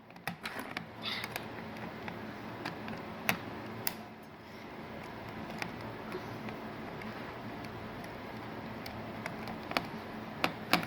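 Scattered light clicks and taps of hands and tools handling the metal and plastic parts of a flat-screen TV under repair, over a faint steady hum.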